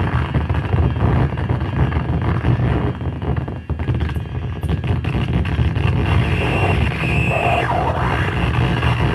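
Live electronic noise jam from effects pedals and handheld electronics: a loud, dense wall of distorted noise with a heavy low rumble. It thins briefly about three and a half seconds in, then comes back.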